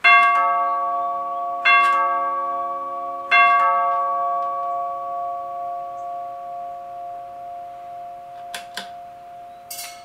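Repaired NuTone two-note long tube door chime, its solenoid plungers striking the brass tubes three times about a second and a half apart; the tubes ring on with a long, slowly fading tone. Two short clicks sound near the end.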